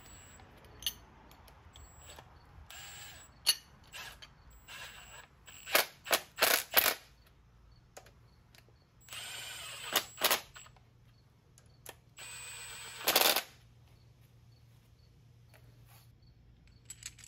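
A power tool driving bolts into the engine in short trigger pulls: a few quick bursts, then two longer runs of about a second each, with scattered metal clicks between them.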